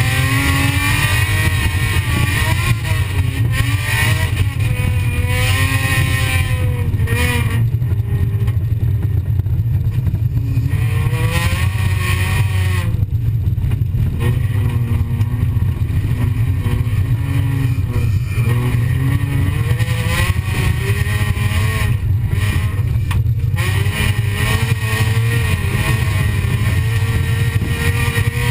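Folkrace car's engine heard from inside the cockpit, revving up and dropping back again and again as it accelerates and lifts off, over a heavy low rumble.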